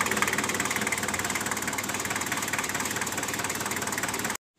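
Daihatsu Taft Hiline's diesel engine idling with a steady, rapid clatter, cut off abruptly near the end.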